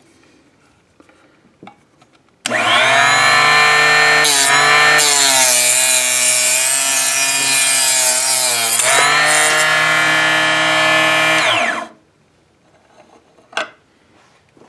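Drillmaster 120-volt 2-inch benchtop cutoff saw switched on: its small motor and blade start with a high whine about two and a half seconds in. The pitch sags for about four seconds as the blade cuts through a brass cartridge case, then climbs back once the cut is through. The saw is switched off about twelve seconds in and winds down quickly.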